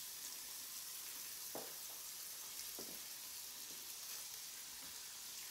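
Sliced smoked sausage sizzling in hot canola oil on the plate of a Red Copper 5 Minute Chef, a steady hiss, with two soft taps as more slices are laid in.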